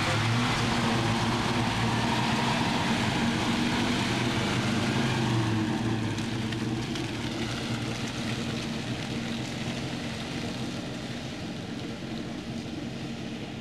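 Land Rover 101 Forward Control's Rover V8 engine running as the truck drives off. It fades steadily from about six seconds in as it moves away.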